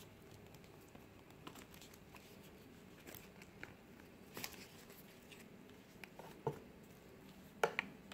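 Faint handling noises as a watch on a leather strap is slipped off its box cushion and turned over in the hand: scattered light clicks and taps, with the sharpest pair near the end.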